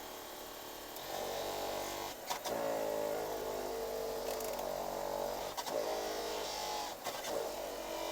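Fan on a Smart ForTwo 451 running with a steady whirring whine. It steps up in level about a second in and is briefly broken by a click three times.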